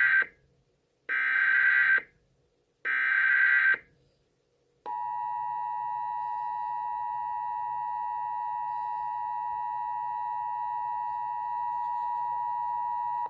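Emergency Alert System SAME header bursts, harsh digital modem-like screeches: the tail of one burst and two more about a second apart, marking the start of an alert, here coded as a Child Abduction Emergency. About five seconds in, the steady two-tone EAS attention signal (853 and 960 Hz) begins and holds for about eight seconds.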